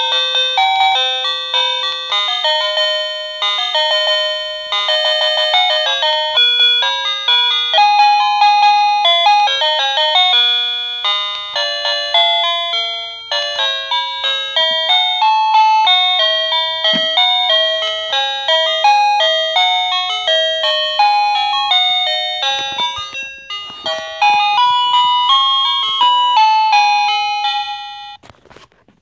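MC wireless plug-in doorbell receiver playing one electronic chime melody after another, cycling through its built-in tunes. Each tune breaks off after a few seconds and the next one starts. There are a few short knocks about three-quarters of the way through, and the melodies stop just before the end.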